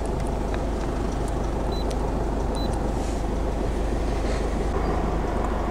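2009 Ford Fiesta's engine idling steadily, heard from inside the car, with two short high beeps about two seconds in.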